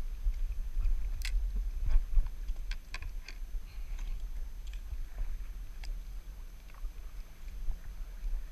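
Irregular light clicks and taps from a spinning rod and reel being handled on a plastic fishing kayak, the sharpest about a second in, over a low steady rumble on the microphone.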